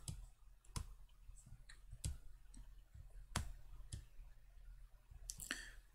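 Computer mouse button clicks: a series of quiet, separate clicks, roughly one every second or so, as menu items and dialog buttons are clicked.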